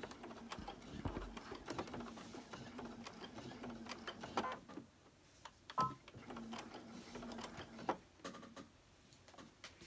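Computerized sewing machine stitching through towel and fabric with a steady hum, stopping about halfway through and again near the end, with a few sharp clicks between the runs.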